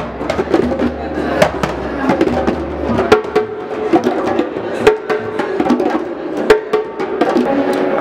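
A circle of djembes and other hand drums played together by a group, a dense stream of slaps and tones.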